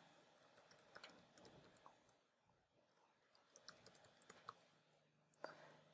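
Faint computer keyboard clicks of typing, coming in short scattered runs, about a second in and again around four seconds in.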